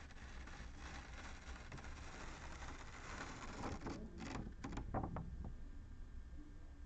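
Rustling handling noise, with a cluster of sharp clicks and snaps about four to five seconds in.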